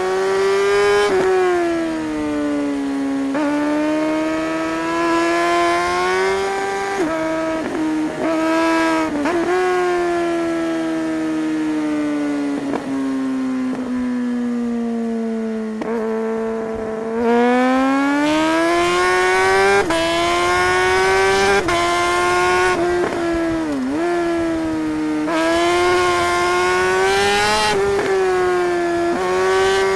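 Suzuki GSR 600's inline-four engine, heard from on the bike, revving up and down through the gears on a winding road. A long run off the throttle lets the pitch fall steadily for several seconds, then a hard pull from about 17 s in sends it climbing. Brief dips mark quick gear changes.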